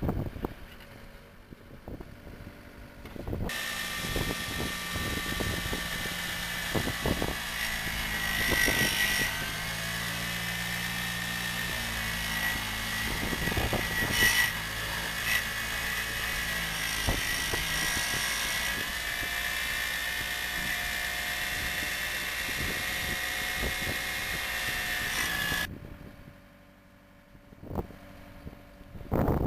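Hybrid sonic/rotary drilling rig running its drill head on the drill string: a steady high whine over a low hum, with occasional knocks. It starts about three and a half seconds in and cuts off a few seconds before the end.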